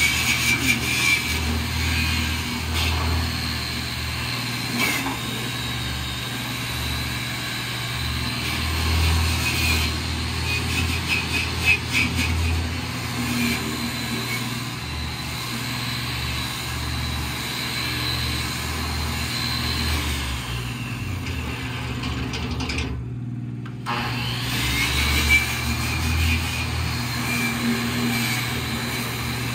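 A motor running steadily with a low hum and a high whine over it.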